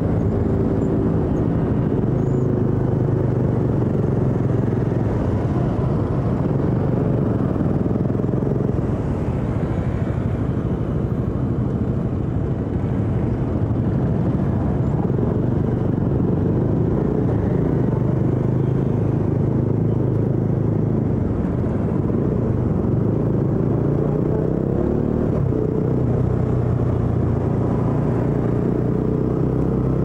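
Motorcycle engine running steadily under way, heard from onboard the bike. Its note climbs a few times in the second half as the bike accelerates.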